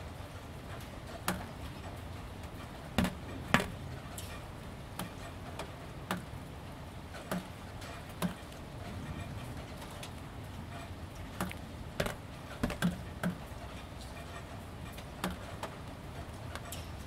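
Gentle steady rain, with drips falling at irregular intervals onto a ribbed roof panel. Each drip lands as a sharp, hollow tap, about fifteen in all over the steady hiss of the rain.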